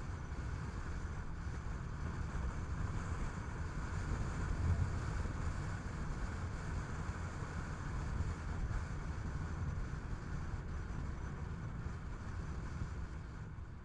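Steady driving noise of a Skoda Kodiaq on the road: a low rumble of tyres and engine with a hiss of wind over it, starting to fade near the end.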